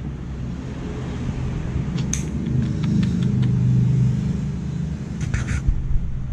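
Dog nail clipper snipping a Chihuahua's claws: one sharp click about two seconds in, then several lighter clicks, with a few more near the end. Under it is a loud low rumble that swells in the middle and then eases.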